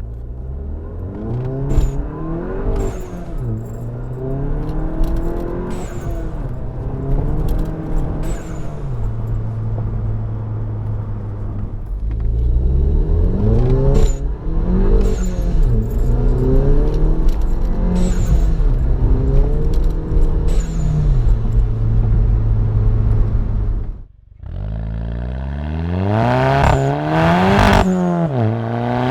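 VW GTI Mk7's turbocharged 2.0 L four-cylinder, with an APR downpipe and Stage 1 tune and its Soundaktor unplugged, pulling through the gears. Engine pitch climbs and drops back at each shift, holding steady in between. About 24 seconds in it briefly cuts out, then it climbs hard again near the end.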